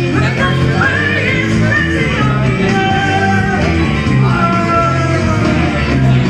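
A woman singing karaoke into a microphone over a rock backing track, her voice holding long notes above a steady, pulsing bass line.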